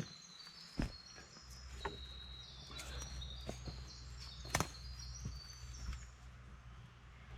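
A few sharp wooden knocks, the loudest about a second in and again about halfway through, as pointed wooden stakes are handled and set. Birds sing throughout with short high whistled notes, over a low steady rumble.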